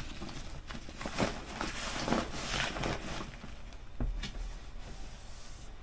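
A Chrome Buran III fabric messenger bag being turned and opened by hand: rustling and scraping of the bag, with a few light knocks, the clearest about four seconds in.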